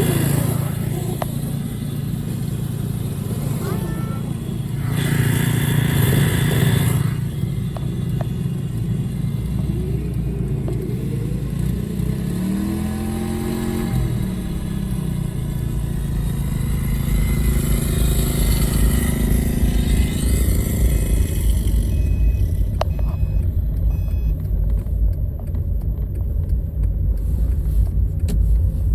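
Small engine of a homemade track sled running steadily, with a rise and fall in pitch near the middle.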